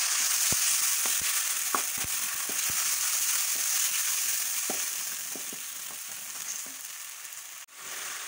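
Chopped tomatoes sizzling in hot oil with ginger-garlic paste, stirred with a wooden spoon that gives a few clicks against the pan; the sizzle grows quieter toward the end.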